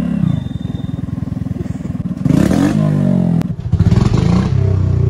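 Hero motorcycle with a loud aftermarket exhaust, ridden slowly. It runs at low revs with distinct exhaust pulses, then is revved up about two seconds in and again a little later, with a brief drop in between.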